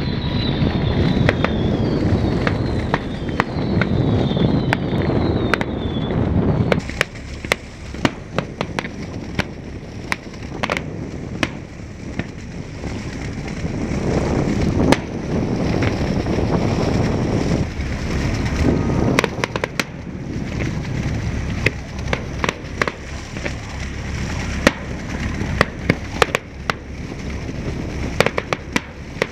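Fireworks display: a run of bangs and crackles from shells bursting at a distance, over a steady low rumble. Several short, high, falling whistles sound in the first six seconds.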